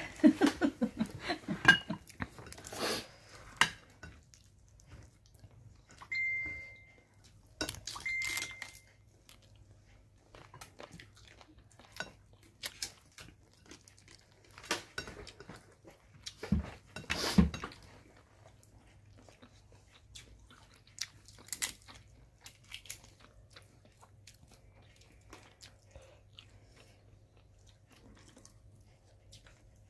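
Eating sounds: butter shrimp and rice being chewed, with scattered clicks and taps of dishes and glass bowls as food is picked up by hand. Two brief high tones about two seconds apart come a few seconds in.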